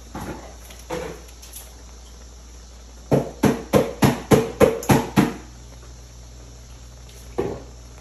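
A quick run of about eight sharp knocks, some three or four a second, with a couple of single knocks before it and one after.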